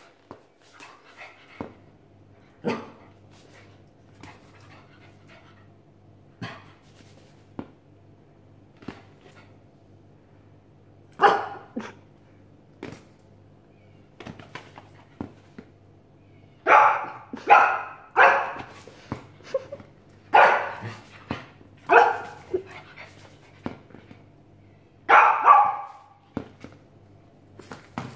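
Small dog barking warily at an unfamiliar object on the floor. A few scattered single barks at first, then louder quick runs of barks from a bit past halfway and again near the end.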